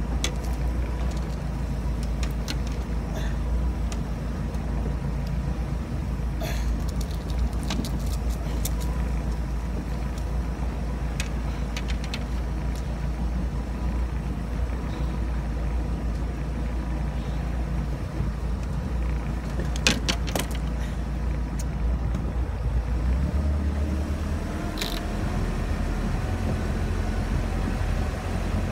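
Boat engine running steadily with wind and water noise, its note rising from about 23 seconds in as the boat picks up speed. A scattering of sharp knocks and clicks, a cluster of them about 20 seconds in.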